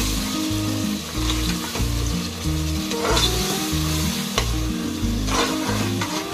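Green herb paste sizzling in hot oil in a pressure cooker as a spoon stirs it, scraping the pot a few times. Background music with a steady bass line plays throughout.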